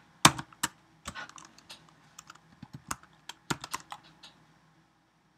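Typing on a computer keyboard: irregular key clicks, a few sharper ones near the start, thinning out and stopping about four and a half seconds in.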